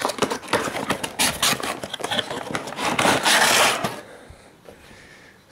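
Cardboard box and packaging being handled: a quick run of clicks, taps and rustles, with a longer scraping rustle about three seconds in as the rubber toothed timing belt is drawn out of its box. It goes much quieter near the end.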